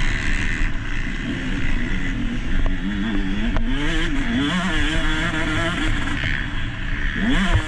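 Motocross dirt bike engine heard from onboard, revving up and down quickly as the throttle is worked, then climbing sharply in pitch near the end under hard acceleration. A couple of brief knocks sound early on.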